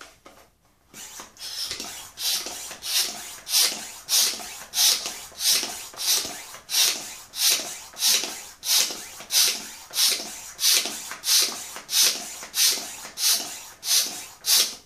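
Hand balloon pump inflating a latex balloon: a rhythmic hiss of air pushed through the pump with each stroke, about one and a half strokes a second, starting about a second in.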